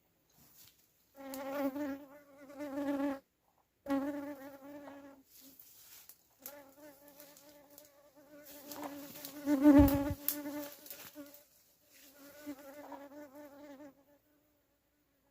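A flying insect buzzing close to the microphone, a wavering hum that comes and goes in several passes. The loudest moment, about ten seconds in, includes a low thump.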